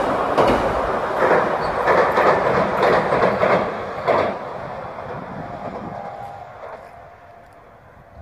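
JR Kyushu 817 series electric train crossing a steel girder bridge, its wheels clattering over the rail joints in a string of clacks. About four seconds in the noise starts to fade steadily as the train pulls away.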